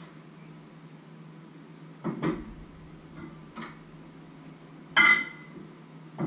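Cookware being handled: pots and a lid knocked and set down, four clanks, the loudest about five seconds in with a short metallic ring. A steady low hum runs underneath.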